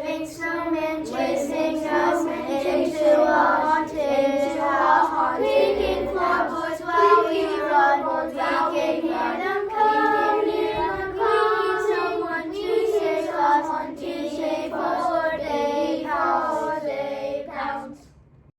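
A class of fourth-grade children singing a song together; the singing stops abruptly just before the end.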